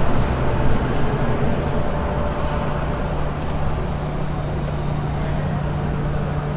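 Electric Sprinter commuter train heard from the driver's cab: a steady low hum over a continuous running rumble, with the hum settling into one even tone about two seconds in.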